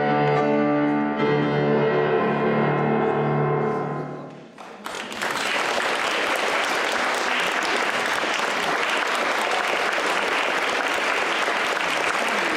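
Music with a grand piano ends on a long held final chord and fades away about four and a half seconds in. The audience then starts applauding steadily.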